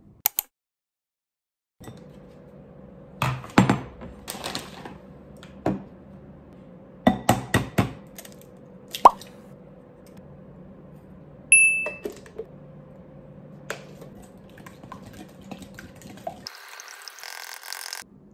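Eggs knocked and cracked on the rim of a glass mixing bowl in a series of sharp taps, the contents dropping into the bowl with a plop. A brief ringing clink of the glass bowl follows, and near the end the eggs are whisked in the bowl with a quick scraping stir.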